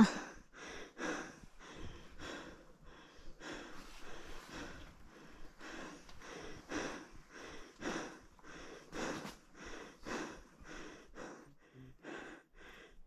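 A hiker breathing hard from the effort of the climb: an even, quick run of in-and-out breaths, about two breath sounds a second.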